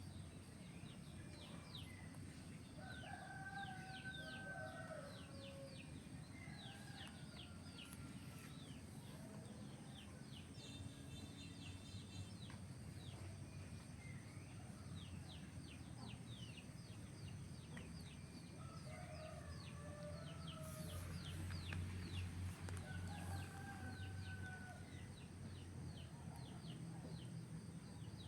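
Faint outdoor farmyard sound: a rooster crowing a few times and chickens clucking, over many short high chirps and a steady high whine. A low rumble swells about three quarters of the way through.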